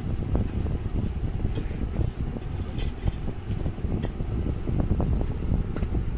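Steady low rumble with a few faint light clicks, as of small balm jars being handled.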